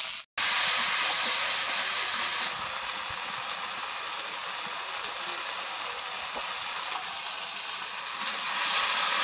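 Onion and spice masala frying in oil in an iron kadai: a steady sizzle that grows a little louder near the end.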